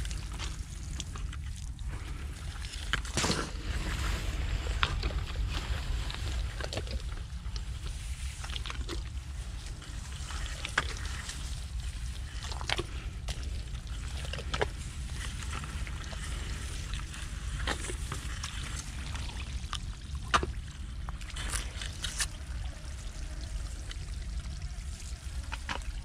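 Shallow muddy water sloshing and splashing as hands grab snakehead fish, drop them into a plastic bucket and feet wade through the flooded rice field. Scattered sharp splashes and clicks come every second or two over a steady low rumble.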